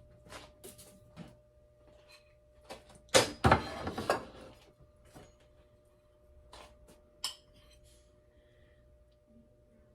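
Kitchen utensils and dishes knocking and clinking in a run of separate sharp clicks, with a louder, noisier clatter lasting about a second starting around three seconds in, and a ringing clink a little past seven seconds.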